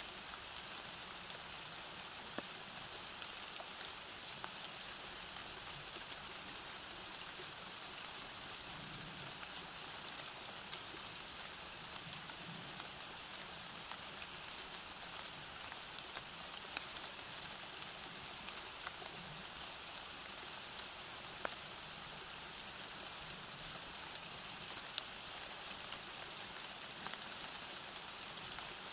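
Steady rain falling, with the odd louder drop clicking through it.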